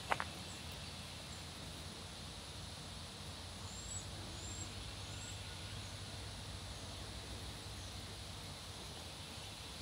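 Steady outdoor background noise with a low hum, a single sharp click just after the start, and a few quick high bird chirps about four seconds in.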